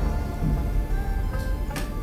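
Background music of sustained, held notes under a dramatic scene.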